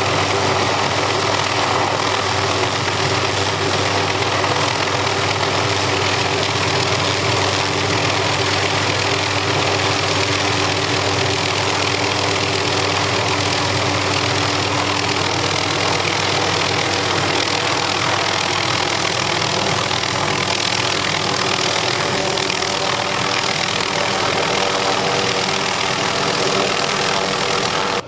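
An engine running steadily, a constant drone that does not rise or fall, then cuts off abruptly at the very end.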